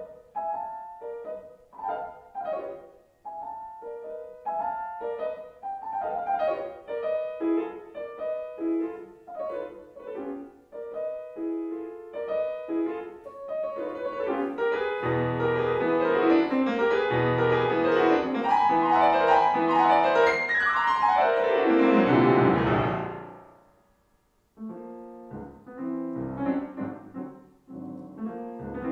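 Solo grand piano playing a romantic classical piece: a gentle melody that swells into a loud, full passage with deep bass notes, ending in a fast run down the keyboard. After a short pause, soft playing resumes.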